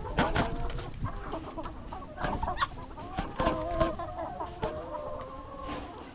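A flock of laying hens clucking, with short sharp calls throughout and a few longer drawn-out calls in the second half.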